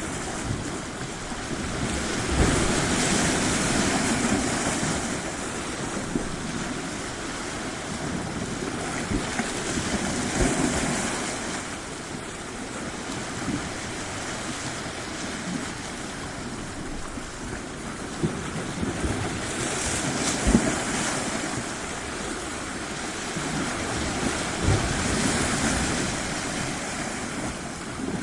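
Surf washing onto a tropical shore, the sound swelling and fading as waves break every several seconds, with a few short low thuds among them.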